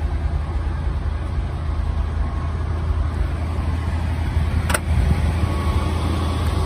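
1980 Ford F-100 pickup's engine idling steadily with a low rumble, with one sharp click about two-thirds of the way in.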